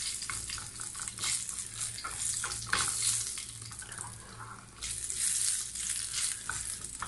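Whole dried red chillies sizzling in hot oil in a small non-stick frying pan, stirred with a plastic slotted spatula: a steady hiss with scattered pops. This is a tadka, the chillies being fried until their rawness is gone. The sizzle dies down briefly a little after four seconds in, then rises again.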